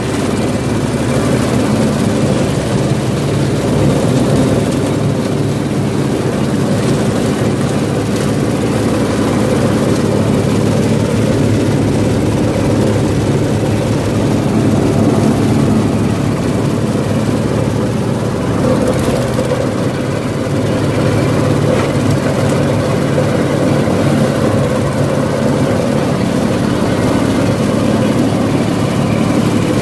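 Grinding machine for cocopeat, compost and feed running steadily at a constant speed, a loud mechanical hum.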